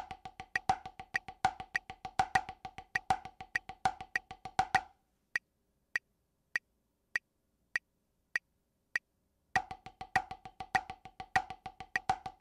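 Drumsticks on a drum practice pad playing steady sixteenth notes with accented strokes over a metronome click at 100 BPM. About five seconds in, the playing stops for a rest and only the click ticks on, about once every 0.6 s, for four or five seconds before the sixteenth notes start again.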